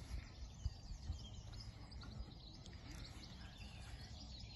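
Small birds chirping and singing over a steady low rumble, with two soft low thumps about a second in.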